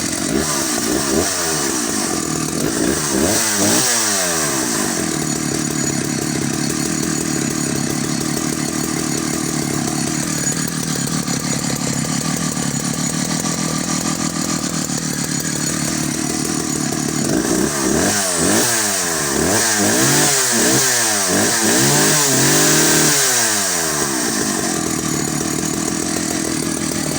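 Vintage Solo 660VA two-stroke chainsaw running. The throttle is blipped in quick revs a few seconds in, then it runs lower and steadier, then is revved again and again through the second half.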